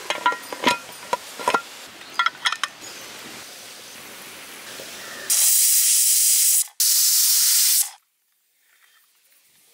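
A few metal clicks as the pressure cooker lid is handled, then steam hissing from the cooker's weight valve, rising to two loud bursts of hiss about five and seven seconds in. These are the cooker's two whistles, the sign that the biryani has come up to pressure.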